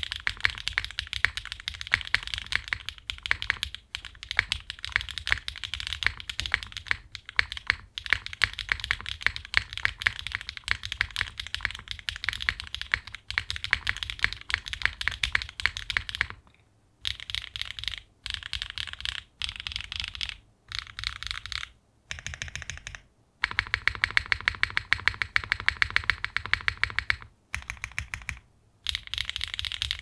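Typing on a Singa Unikorn mechanical keyboard with factory-lubed HMX Cheese linear switches, a polypropylene plate and GMK keycaps: a fast, unbroken run of key clacks for about the first half, then shorter bursts of keystrokes with brief pauses between them.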